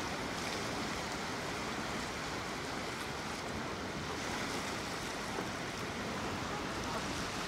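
Small waves lapping on the shore in a steady, even wash of water noise, with some wind buffeting the microphone.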